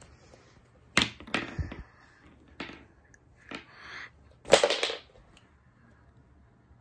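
Handling noise: a scattered run of knocks, bumps and short rustles as toys and fabric are moved about, the loudest a rustling thump about four and a half seconds in.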